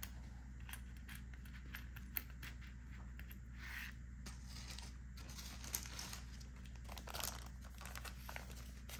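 Faint handling sounds: light clicks and taps of jewelry and a thin metal chain on a tabletop, then a small plastic zip bag crinkling near the end, over a steady low hum.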